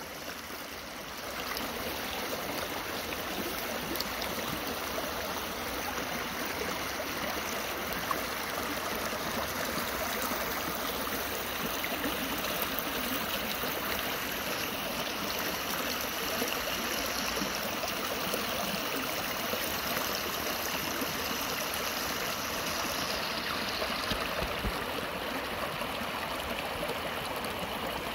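Shallow rocky stream rushing and splashing over boulders and small riffles: a steady, even rush of running water.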